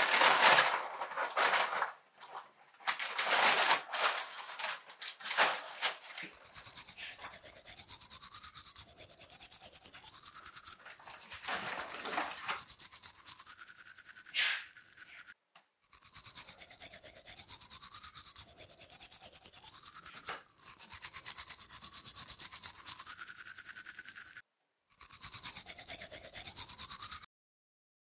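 Toothbrush brushing sound: loud scratchy scrubbing bursts for the first few seconds, then a steady rapid buzz of an electric toothbrush whose pitch dips and rises over and over as it moves. The buzz cuts out briefly three times and stops near the end.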